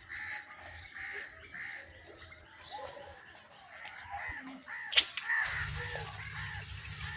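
Crows cawing over and over in short, harsh calls, with small birds chirping. A sharp click comes about five seconds in, and a low rumble starts just after it.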